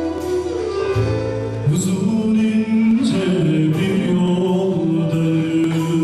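Live band playing Turkish music, with a man singing a long held melody over the instruments from about two seconds in.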